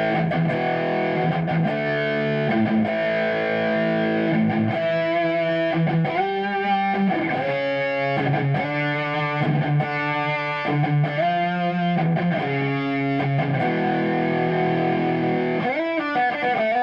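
Kiesel Osiris electric guitar with beryllium pickups, both pickups selected, played through a Kemper profiler's plexi crunch profile: distorted chords and licks with a few bent notes.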